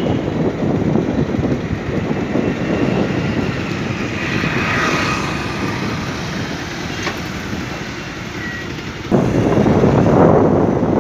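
Road and wind noise from a moving vehicle on an open road, with wind rumbling on the microphone. The noise eases off gently, then jumps abruptly louder and rougher about nine seconds in.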